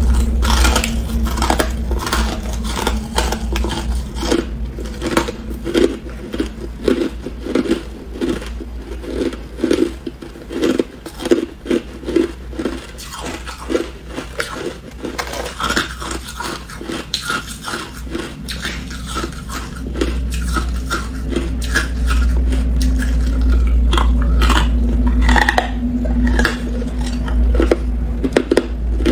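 A person biting into and chewing chunks of hard crushed ice close to the microphone: a fast, irregular run of crisp crunches, over a steady low hum.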